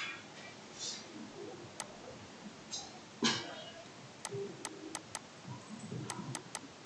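Faint, irregular light clicks and taps of a stylus on a touchscreen as handwriting is written, most of them in the second half. About three seconds in there is a short, louder rush of noise like a breath.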